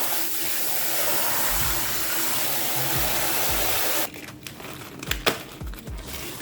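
A loud, steady blowing noise with a low hum, like a motor-driven blower, that cuts off abruptly about four seconds in; a few soft low knocks and one sharp click follow.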